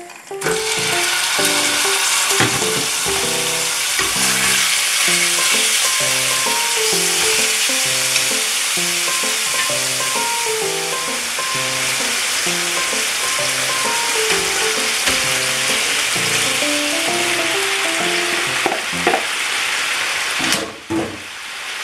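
Diced raw meat sizzling in hot oil in a nonstick frying pan over a gas flame, a steady loud fry that starts as the meat goes in about half a second in and cuts off near the end. Light background music plays underneath.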